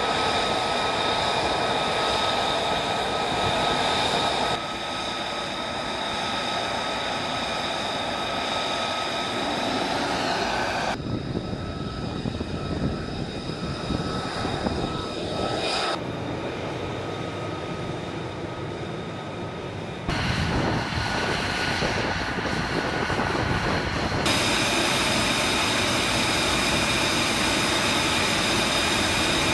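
F-35 Lightning II jet engines running: a steady high turbine whine over a rush of engine noise. Its character changes abruptly several times, every four to six seconds.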